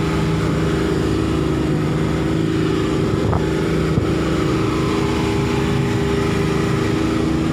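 Twin outboard motors driving a fast boat at speed, running with a steady, even hum.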